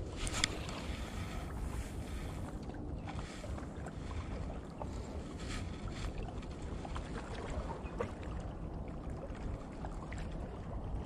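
Steady wind buffeting the microphone over soft lapping water, with a few faint clicks.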